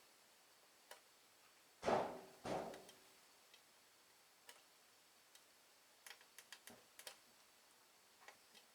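Scattered small clicks and ticks of hand tools against the processor socket and circuit board during desoldering, with two louder short noisy sounds about two seconds in and a quick run of clicks about six seconds in.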